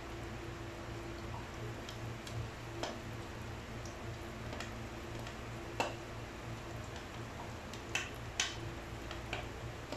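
Scattered light ticks and clicks from a nonstick wok holding minced garlic in oil that is slowly heating, with a spatula handled over it, above a steady low hum. The two loudest clicks come close together near the end.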